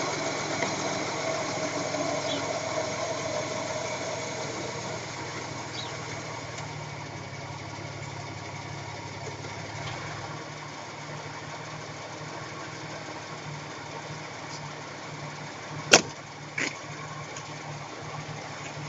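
Ford Taurus on the move with a steady low drone, typical of a worn front wheel bearing, easing off as the car slows. A sharp click comes about three-quarters of the way through, with a smaller one just after.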